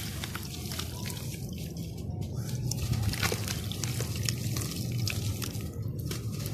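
Hands squeezing a dirt-and-sand ball apart underwater in a plastic basin: water sloshing and splashing, with many small drips and splashes.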